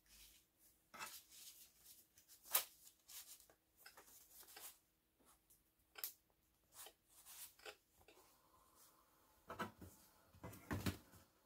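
Faint, irregular clicks and ticks from a 5.25-inch floppy drive as its head steps while Locksmith copies a disk image onto a blank diskette, over a faint steady hum that stops about eight seconds in.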